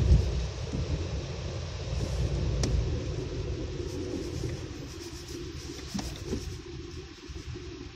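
Car driving on a wet, slushy road, heard from inside the cabin: a steady low rumble of engine and tyres, easing off and getting quieter in the second half, with a couple of faint clicks.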